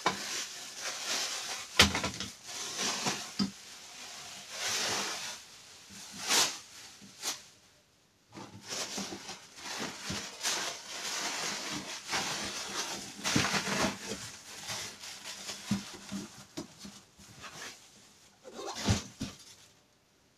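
Plastic wrapping and a cardboard box being handled: irregular rustling and crinkling as the wrapping is pulled about, with a few sharp knocks.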